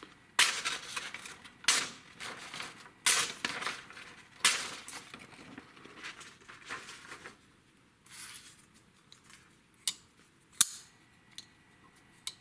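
Sheet of paper being sliced by the D2 steel blade of an Ifengro EF81 folding pocket knife: four rasping slicing strokes of about a second each, then fainter ones. Later come a few sharp clicks.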